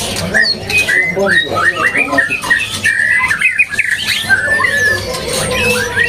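Caged male white-rumped shamas (murai batu) in full song: a dense, unbroken run of quick rising and falling chirps and whistled notes.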